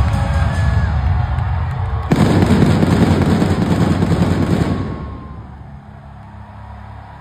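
Arena entrance music, cut across about two seconds in by stage pyrotechnics going off: a sudden loud rush of spark fountains and flame jets that lasts under three seconds. Then the level drops and the music carries on more quietly.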